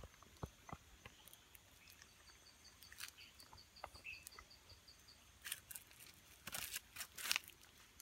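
Faint night-forest ambience: an insect calls in a rapid, even series of high ticks, about seven a second for some three seconds, among scattered soft crackles and rustles.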